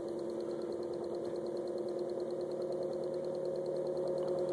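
A four-pole monopole pulse motor (Bedini-style energizer) running and driving a 400 W wind generator: a steady machine hum of several pitches with a fast, even pulsing flutter. It gets a little louder in the second half.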